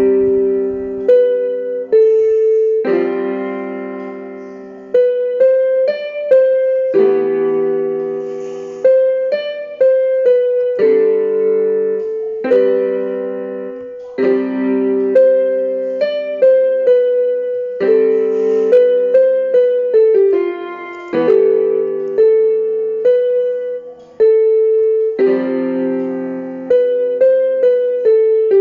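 Background solo piano music: a melody of struck notes over chords, each note fading after it is played.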